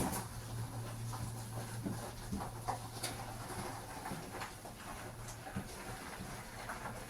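A person panting heavily while pushing a heavy motorcycle across gravel, with scattered short crunches from the gravel.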